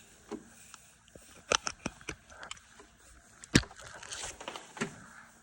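Scattered clicks and knocks from hands working a battery charger and its leads, the loudest about three and a half seconds in.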